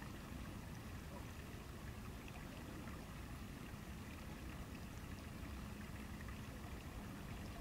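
Steady low background rumble, with faint scattered ticks and no distinct event.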